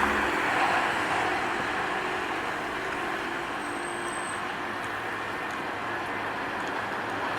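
Truck passing on a road: a steady rush of engine and tyre noise that eases off over the first couple of seconds and then holds.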